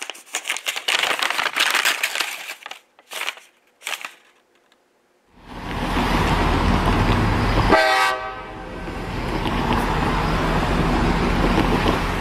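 Paper crackling as a crumpled sheet is unfolded, in bursts for about four seconds. Then a train's loud steady rumble starts about five seconds in, with a brief horn note a little before the middle of that stretch.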